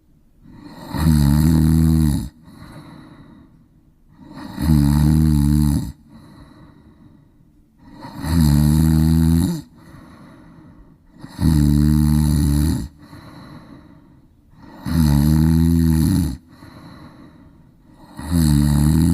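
Snoring: six loud, rasping snores on the breath in, about every three and a half seconds, each just over a second long, with a softer breath out between them.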